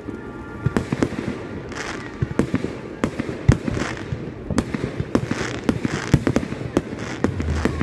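Fireworks display: aerial shells bursting in a string of sharp bangs at irregular intervals, often several a second, with crackling between the bangs.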